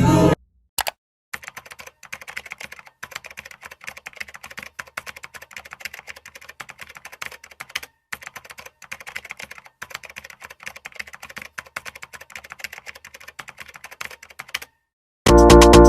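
Rapid typing on a keyboard, many keystrokes a second with short pauses, stopping shortly before the end.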